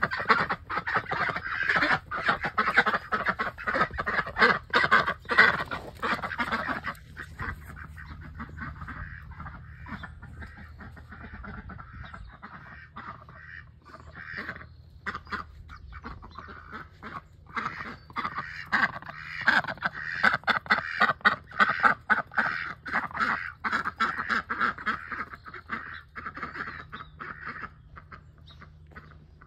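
A flock of domestic ducks quacking loudly and rapidly, calling back and forth while one duck is separated from the others by the pen fence. The calls are dense for the first several seconds, thin out in the middle, and pick up again for a long stretch in the second half.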